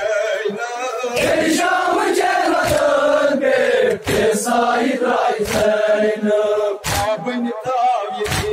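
Male voices chanting a noha, a Shia mourning lament, over sharp rhythmic chest-beating (matam) slaps about every second and a half.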